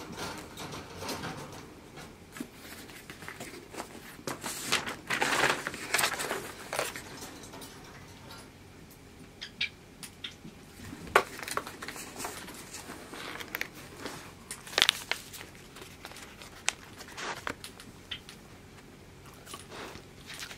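Paper inserts, cardboard and plastic treat pouches rustling and crinkling in hands as a cardboard box is unpacked, in irregular bursts with sharp taps and clicks; the busiest stretch comes about five seconds in.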